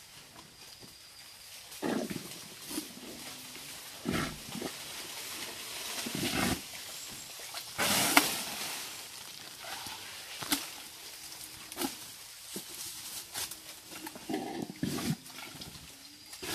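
Sumatran elephants making a string of short, low sounds, one every one to three seconds.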